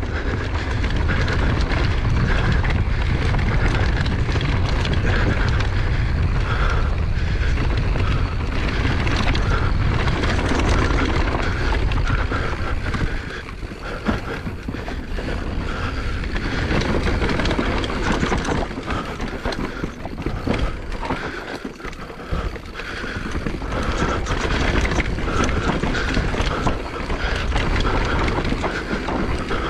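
Wind buffeting a GoPro's microphone during a fast mountain-bike descent, with tyres and bike rattling over a dusty, bumpy dirt trail. The noise eases briefly twice, near the middle and about three-quarters through.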